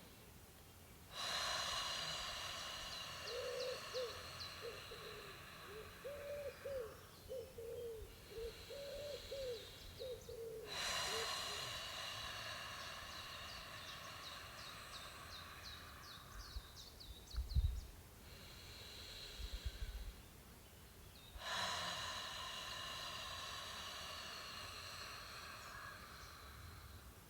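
A person slowly exhaling the heart healing sound, a long breathy voiced breath, three times. Each exhale lasts about eight seconds, with a quiet pause for the in-breath between them.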